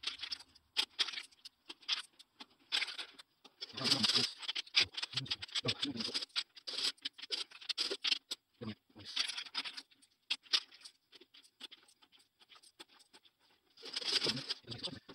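500-yen coins clicking and clinking against each other and on a wooden tabletop as they are counted and stacked, many quick clicks coming in clusters. Near the end, coins rattle inside a plastic coin bank as a hand reaches in for more.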